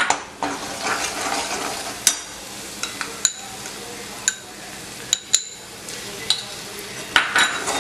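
Onion masala with freshly added ground poppy seeds sizzling in hot oil in a metal kadhai as it is stirred with a slotted metal spoon. The spoon clicks sharply against the pan now and then, several times over the stretch.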